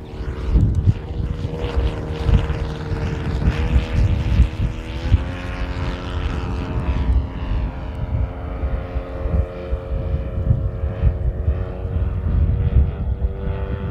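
Saito FG-41TS 41 cc four-stroke flat-twin engine of a radio-controlled model airplane in flight, a steady propeller drone whose pitch steps up twice about four and five seconds in, then holds.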